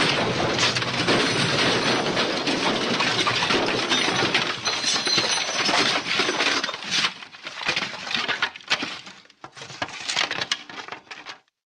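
MGM 'elephant smash' cartoon crash sound effect: a dense, sustained clatter of smashing glass and splintering wood. About seven seconds in it thins into scattered tinkling and clattering debris, which dies away near the end.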